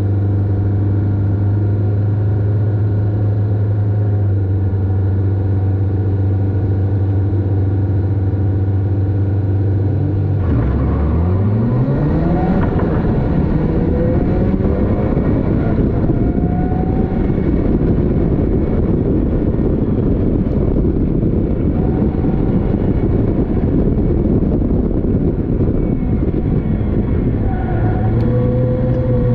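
Caterham Seven race car's engine heard from the cockpit, held at steady revs, then about ten seconds in the pitch dips and climbs sharply, rising again and again as the car accelerates hard through the gears at a race start. Wind and road noise grow as speed builds.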